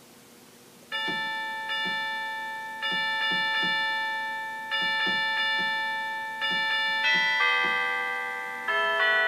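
Bell-like chime tones begin about a second in, struck one after another every half second to second and a half. Each rings on and slowly fades, and the later strikes overlap into fuller chords. It is slow, bell-imitating music.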